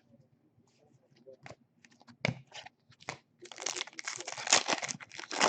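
Foil trading-card pack wrapper crinkling and tearing open: a few scattered crackles, then a dense run of crinkling over the last two seconds.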